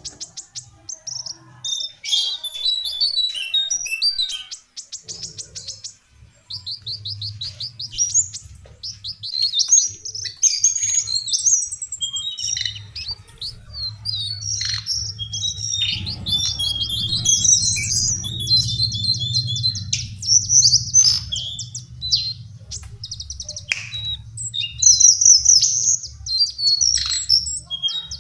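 Lesser shortwing (cingcoang coklat) singing: a fast, high jumble of chirps, trills and quick down-slurred notes, with a low hum underneath.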